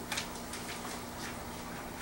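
A steady low hum with faint, brief scratches and rustles of pencils and paper as several people write.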